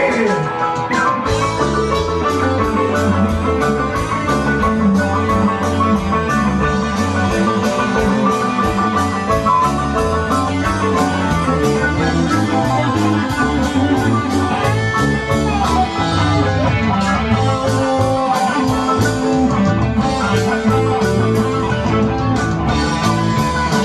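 Live rock band playing electric guitars, bass guitar and drum kit, with a steady drum and cymbal beat.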